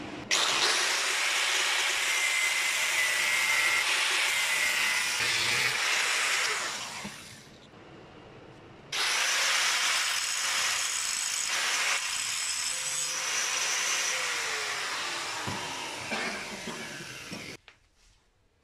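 Angle grinder grinding a steel hatchet head, in two long stretches with a brief lull about halfway through. The grinding cuts off abruptly near the end.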